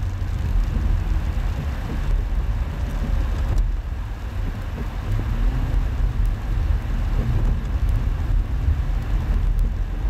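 A vehicle driving along a wet dirt track: a steady low rumble of engine, tyres and wind, with light rain ticking on the vehicle.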